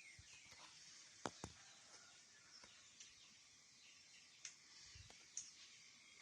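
Faint high bird chirps and twitters, with a few sharp clicks, the loudest two close together just over a second in.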